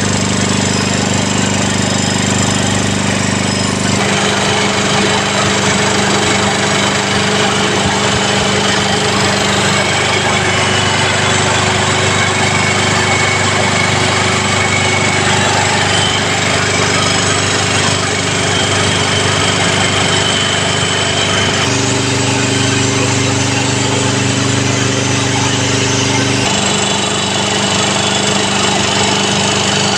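J.P. Sauer WP151L air-cooled marine air compressor running steadily, its pistons compressing air.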